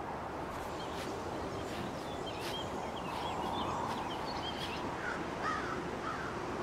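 Outdoor ambience: a steady even hiss with birds calling over it, short high chirps through the first half and lower, swooping calls from about five seconds in.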